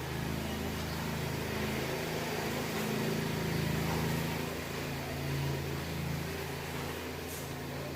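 A low, steady engine-like hum whose pitch wavers slightly.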